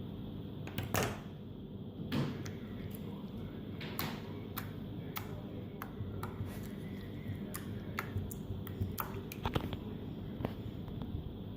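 Yellow slime being worked by hand, giving off irregular small sharp pops and clicks over a low background rumble.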